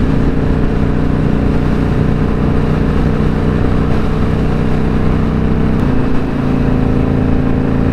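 Indian Scout Bobber's V-twin engine running steadily at cruising speed, heard from the rider's seat over rushing wind noise. About six seconds in, its pitch shifts and the level dips briefly, as with a throttle change or gear shift.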